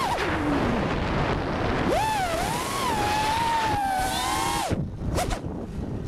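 The brushless motors of an FPV quadcopter (Cobra 2204 2300KV, 5-inch props) whine over propeller and wind rush, the pitch rising and falling with the throttle. The whine drops right at the start and climbs back about two seconds in. Near the end the throttle is chopped, with a short blip, before the whine climbs again.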